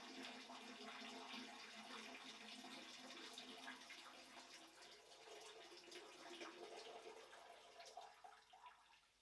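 A stream of urine splashing into the water of a toilet bowl, steady and faint, then tapering off in the last second or so and stopping.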